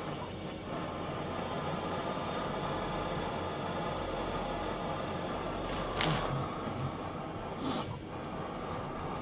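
Steady mechanical hum and hiss of the machinery inside a deep-sea submersible's cabin, with two short bursts of hiss about six and eight seconds in.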